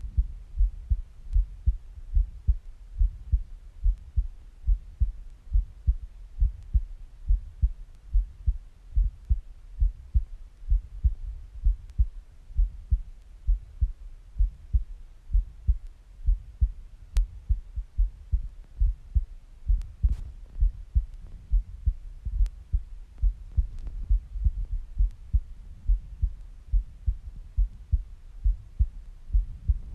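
A woman's heartbeat recorded at the chest: a steady, even rhythm of low thumps.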